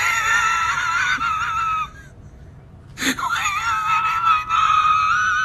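Cat giving a long, high, wavering whine twice, with a quieter pause of about a second between the two cries.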